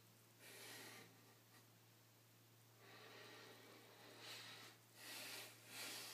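A man's breathing through nose and mouth while straining to hold a flexing pose: about five short, airy puffs, the last three close together near the end, over a faint steady hum.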